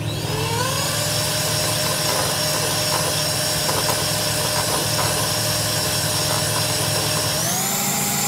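Electric hand mixer starting up with a rising whine, then running steadily as its beaters whip chilled heavy cream in a bowl. Its pitch steps up about seven seconds in.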